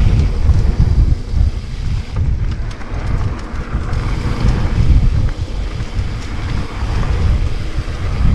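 Wind buffeting the microphone of a camera riding on a moving mountain bike, a loud uneven low rumble, with a few faint clicks and rattles from the bike on the trail.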